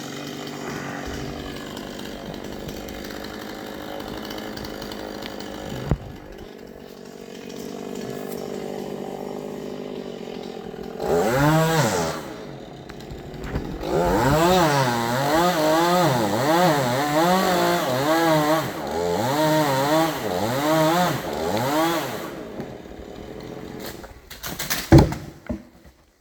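Chainsaw running, then from about eleven seconds in revved up and down over and over, about once a second. A single sharp knock near the end as the sound dies down.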